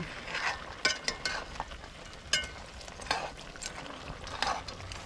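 A metal spoon stirring a simmering pot of curry goat over a wood fire. It scrapes and clicks against the pot, with a few short ringing clinks, over a low sizzling simmer.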